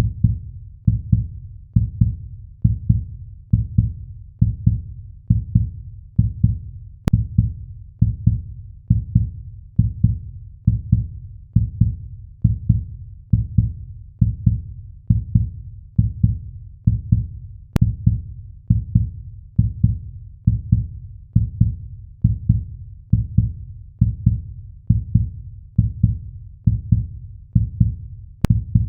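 Heartbeat sound effect: a steady, slow lub-dub, each beat a pair of deep, low thumps, repeating a little under once a second.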